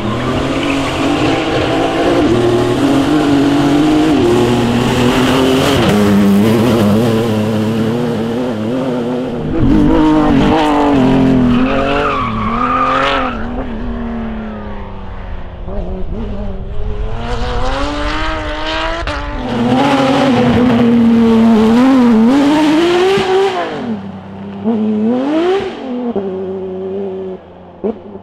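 Rally cars driving hard past one after another, engines revving up and dropping back again and again through gear changes and lifts.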